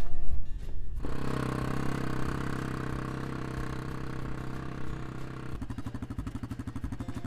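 ATV (quad bike) engine running, coming in sharply about a second in with a steady low hum, then changing near the end to a rapid, even putter.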